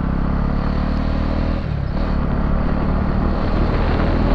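Motorcycle engine running at steady speed while riding. About two seconds in its steady note gives way to a rougher rumble of road and wind noise.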